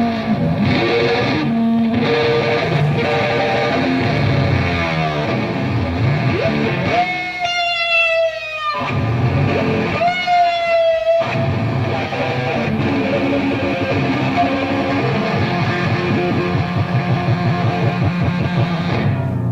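Heavily distorted electric guitar played loud through effects in a live acid-rock performance, with two long held, slightly wavering notes, one about a third of the way in and one about halfway.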